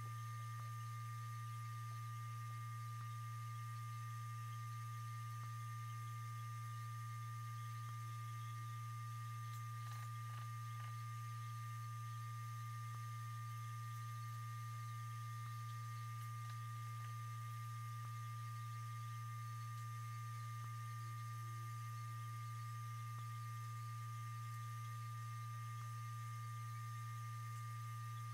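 A steady low electrical hum with a fainter, thin high tone above it, and a few faint clicks about ten seconds in.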